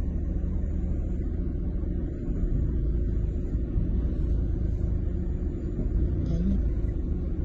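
Steady low rumble of a fast-flowing, flood-swollen river.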